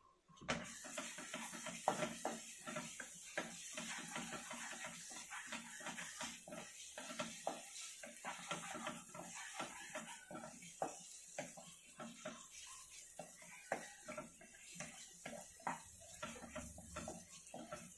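A wooden spatula stirring and scraping thick masala around a non-stick kadai. The knocks and scrapes come in quick, irregular strokes over a steady high hiss.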